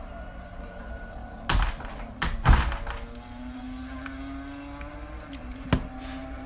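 Race car engines from a Le Mans test-day recording running steadily in the background, their pitch rising slowly, with four sharp knocks of the phone and tools being handled on the bench, the loudest about two and a half seconds in.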